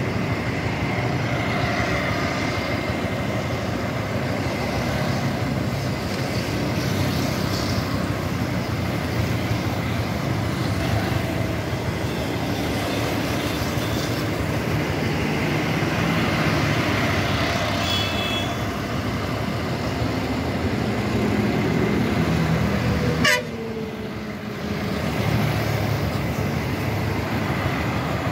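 Road traffic heard from a moving motorbike: a steady rush of engines and road noise, with vehicle horns honking now and then. The sound breaks off abruptly about twenty-three seconds in and picks up again a moment later.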